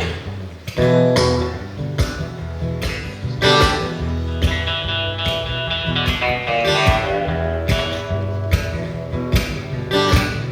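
Guitars strummed in a steady rhythm over a low bass line: the instrumental intro of a live blues-tinged song, before the singing comes in.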